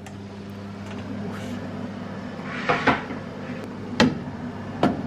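Countertop oven door opened and a baking tray of chicken and vegetables slid in, giving four sharp clattering knocks, the loudest about four seconds in, over a steady low hum.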